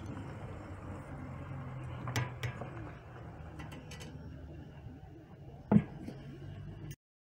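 A kazan full of crayfish at a rolling boil gives a steady low bubbling. A metal utensil clinks against the pot a few times, then one loud knock near the end as the wooden lid is set down on the kazan.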